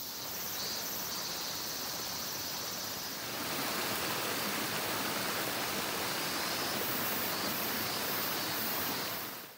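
Small shallow stream rushing over rocks, a steady rushing noise that grows louder about three seconds in, with insects chirring high behind it. It fades out near the end.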